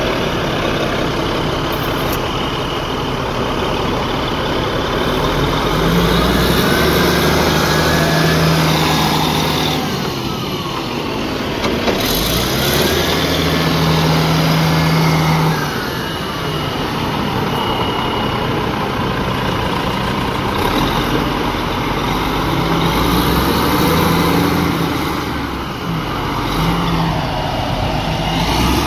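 Cat 980C wheel loader's diesel engine running and revving up under load several times as the loader manoeuvres. A whine rises and falls in pitch with each rev.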